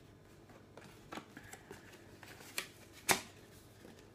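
Cards and paper being handled: a few short, crisp rustles and taps, the loudest about three seconds in.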